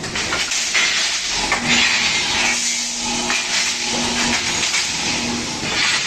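CNC 325 metal-working machine with automatic feeding at work: a steady hissing noise with scattered knocks, and a low hum that comes and goes in the middle.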